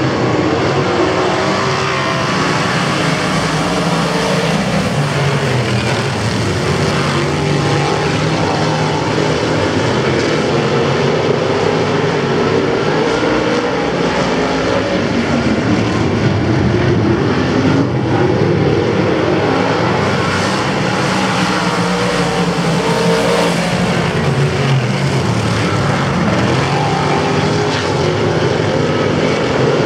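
A pack of small winged sprint cars racing on a dirt oval, their engines running at high revs in a continuous, wavering drone.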